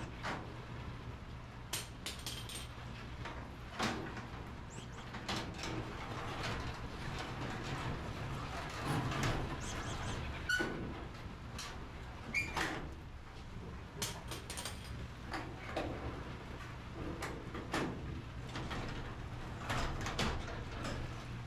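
Garage door rollers being popped out of and fitted into the steel door track: irregular metallic clicks and knocks, with a steady low hum underneath.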